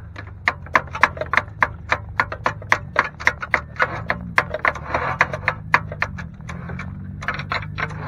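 Even, rapid clicking, about four clicks a second, from the derby car's Ford starter as it is tried: the starter clicks but the engine does not crank or catch, typical of a run-down battery.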